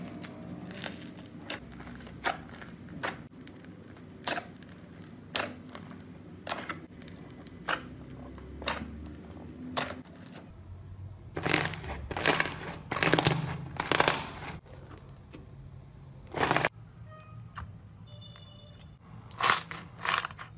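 Crunchy slime mixed with foam beads pressed and squeezed by hand: sharp crackling pops about once a second, then, about halfway through, longer and louder crunching squishes.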